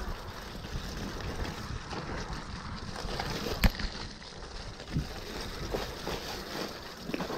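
Enduro mountain bike descending a dirt trail covered in leaves: wind rushing over the handlebar camera's microphone and the rumble of the tyres, with a sharp knock about three and a half seconds in and a smaller one around five seconds.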